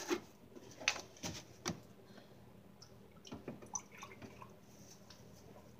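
Plastic gallon jug being handled: a few light clicks and knocks as the cap is twisted off and the jug is lifted, with faint sloshing of the liquid inside as it is tipped to pour.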